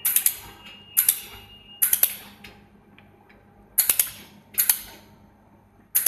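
Handheld fiber-laser welder spot-welding a sheet-metal panel seam: a series of about six sharp crackling pops, each fading within half a second, roughly a second apart with a longer gap midway.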